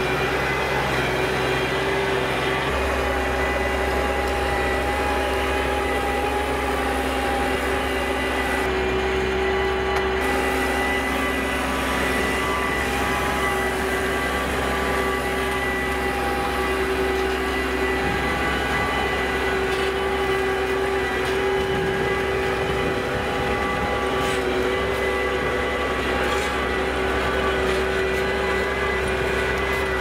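Case IH Maxxum 140 tractor engine running at steady revs under load as it pulls a drag harrow through the soil, with a steady whine riding over the engine note.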